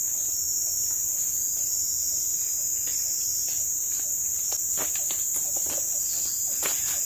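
A steady, high-pitched drone of forest insects such as crickets, running on without a break. A few faint rustles and knocks come in the second half.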